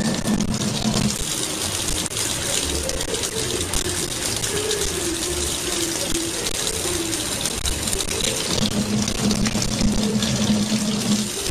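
Kitchen tap running a thin stream of water into a sink, a steady splashing hiss throughout, with a low hum joining in near the end.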